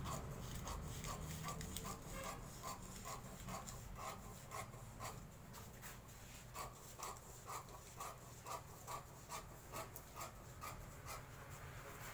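Scissors snipping through paper pattern sheet along its side edge, a steady run of short faint cuts about three a second.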